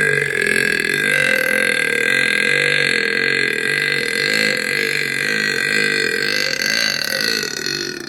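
A woman's very long, continuous belch: a loud, rough, low croak held steadily for many seconds that cuts off near the end.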